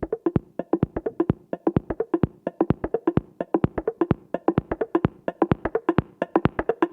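Background music: a rapid, steady run of short, clicky, pitched percussive notes, like a wood block or plucked pattern, with no bass.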